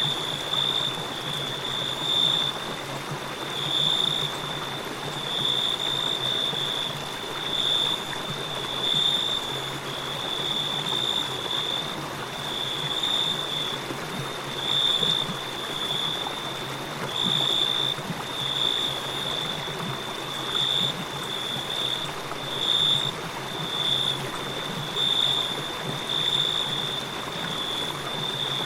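A river flowing with a steady rushing sound, and crickets chirping over it in a high, pulsing trill that swells about once a second.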